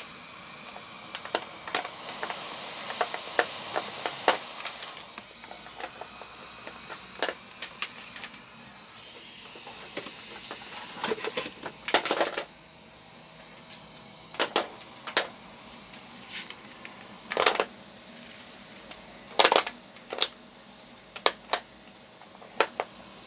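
Heat gun blowing steadily, with its noise dropping away about twelve seconds in. Scattered sharp clicks and taps run throughout.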